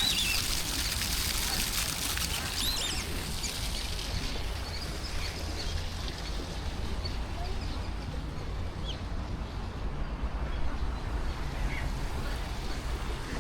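Ducks quacking and other birds chirping while being fed pellets, with short high chirps mostly in the first few seconds, over a steady low rumble.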